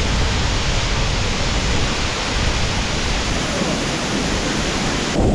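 A waterfall roaring steadily, a dense, even rush of falling water with a strong hiss. Right at the end the sound cuts abruptly to a duller, lower rumble.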